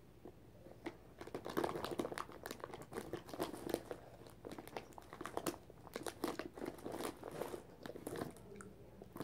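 Crispy M&M's being chewed close to the microphone: a dense run of crisp crunches that starts about a second in and thins out near the end.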